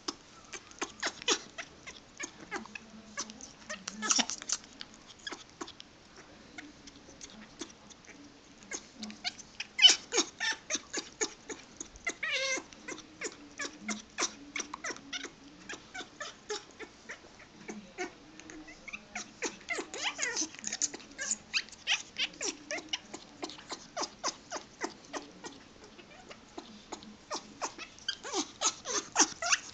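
A pet animal making odd sounds: bursts of rapid sharp clicks, several a second, over a low tone that comes and goes. The loudest click is about ten seconds in.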